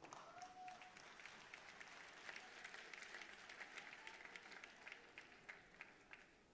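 Audience applauding, faint, building and then thinning out near the end.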